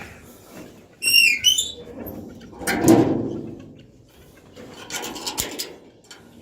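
A bird calls in a quick run of high, curving chirps about a second in. A louder rustling, scraping noise follows in the middle, with softer scrapes and clicks later.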